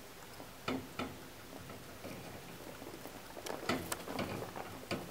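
Dry hay rustling and crackling as a guinea pig stirs in it: scattered light clicks, two early on and then a quick cluster from about three and a half to four and a half seconds in.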